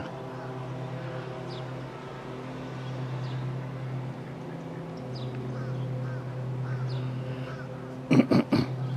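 A steady low motor hum runs throughout, with faint short bird chirps above it. About eight seconds in come three short loud calls.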